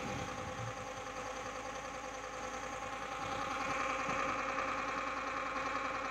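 A toy mini blender's small electric motor running with a steady whir. It grows louder about halfway through.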